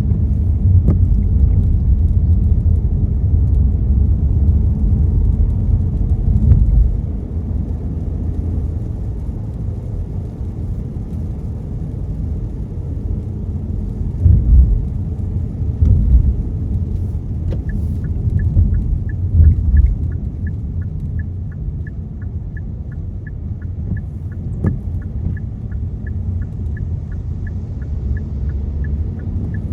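Car's road and tyre rumble heard from inside the moving car, easing about 7 s in, with a few louder swells later. From about 18 s a steady, even ticking sets in, about two ticks a second.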